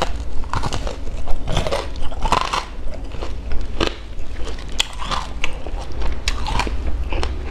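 Close-miked biting into and chewing a crispy fried sesame-coated pastry, with repeated crunches and crackles.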